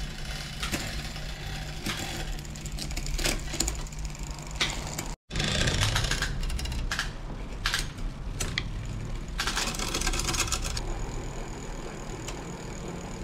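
Bicycle drivetrain turned by hand on a repair stand: the chain runs over the sprockets and chainrings with a stream of quick clicks and rattles while the derailleurs are adjusted, over a steady low hum. The sound breaks off for a split second about five seconds in.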